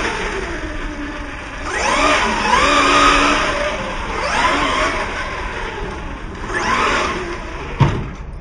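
Electric RC short course truck driving on a dirt track, its motor and drivetrain whining up in pitch three times as it is throttled out of the turns, with tyres hissing on the dirt. A sharp thump near the end.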